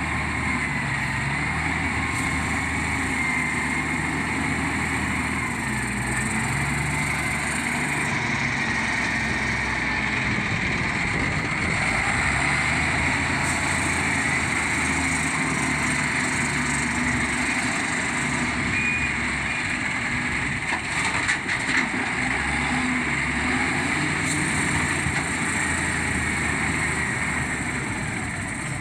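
Diesel engine of a heavy earthmoving machine running steadily, with a faint wavering high whine above the engine note and a few short knocks about two-thirds of the way through.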